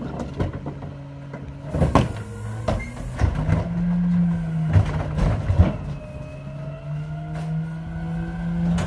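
Mack McNeilus rear-loader garbage truck's cart tipper lifting and emptying a wheeled trash cart. Metal clanks as the cart catches on the lifter about two seconds in, then a steady hydraulic hum over the running diesel engine from about three and a half seconds, with a few sharp knocks as the cart tips at the top.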